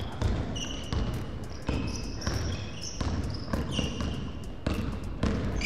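A basketball being dribbled on a wooden gym floor, with repeated bounces. Sneakers squeak sharply on the court between the bounces.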